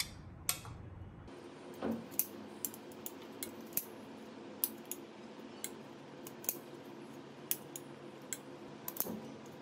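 Clever cutter kitchen scissors snipping slices off a tomato: sharp, irregular clicks of the closing blades, about two a second.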